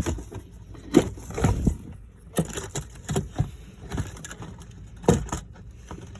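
Air filter box tabs on a Polaris Ranger being popped open by hand: a string of sharp, irregularly spaced clicks and knocks, about nine over six seconds.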